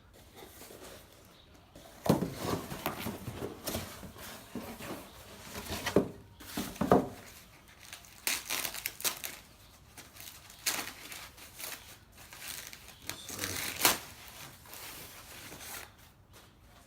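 Packing material crinkling, rustling and tearing in irregular bursts as a boxed bicycle fork is unwrapped by hand.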